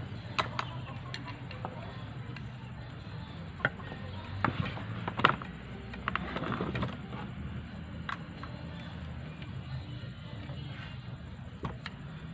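Scattered small metallic clicks and taps of steel bolts and an Allen key being handled while the oil-reservoir housing of an AC vacuum pump is unbolted. The loudest knock comes about five seconds in, with a short cluster of taps just after six seconds.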